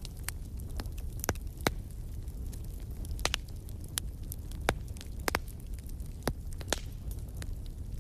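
Wood fire crackling in a fireplace: sharp, irregular pops and snaps, about a dozen, over a steady low rumble of the flames.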